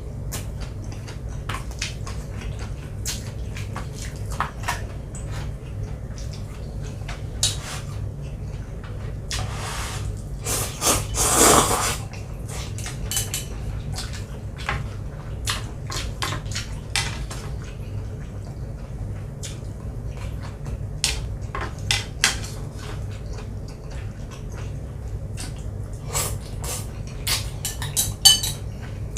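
Utensils clicking and clinking against a bowl during a meal of instant noodles. There are scattered sharp taps throughout, a longer rushing noise around the middle, and a steady low hum underneath.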